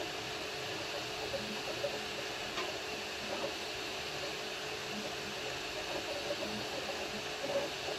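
Anycubic Kobra Max 3D printer running mid-print: steady cooling-fan hiss with a low hum, and short irregular chirps from the motors as the print head moves.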